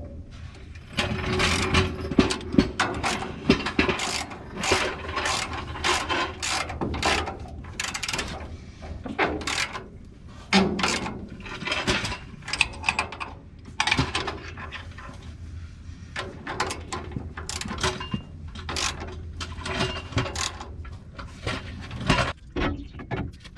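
A hand ratchet wrench being worked in repeated strokes, its pawl clicking in short runs a stroke or two a second, with a few brief pauses.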